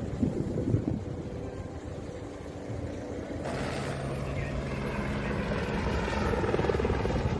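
Firefighting helicopter with a water bucket slung below it flying overhead, its rotor and turbine running steadily and growing gradually louder.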